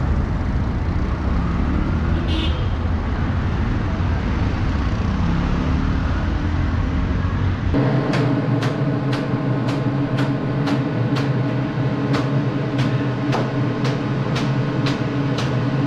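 Street traffic noise with idling vehicles. About eight seconds in it cuts to two heavy cleavers chopping a trough of raw onions on wood: sharp, even strikes about two to three a second over a steady hum.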